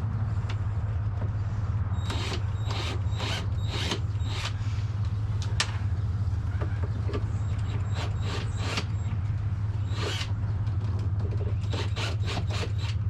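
A drill bit chasing a hole through the thick plastic wall of a motorcycle tour pack, heard as groups of short, sharp scraping strokes over a steady low hum.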